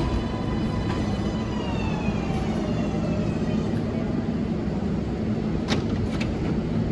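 R188 subway train running with a steady low rumble while its motor whine falls in pitch as the train slows. There are a couple of sharp clicks near the end.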